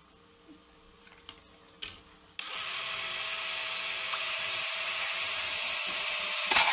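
Cordless drill switched on suddenly about two and a half seconds in, its motor running steadily and growing slightly louder, after a sharp knock shortly before. A loud click comes near the end.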